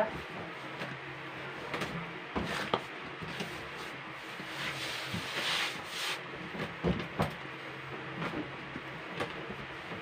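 Hands kneading a lump of marshmallow fondant on a metal worktop: scattered soft thumps as the dough is pressed and pushed down, with rubbing and sliding in between.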